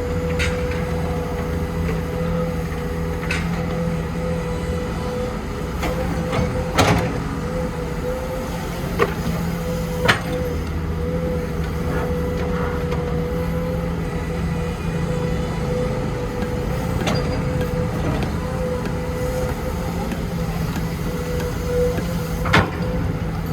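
Heavy construction machinery's diesel engine running steadily, with a few sharp knocks and clanks at irregular moments.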